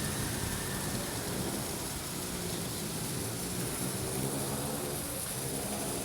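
Steady rain falling, with the low hum of a vehicle engine underneath.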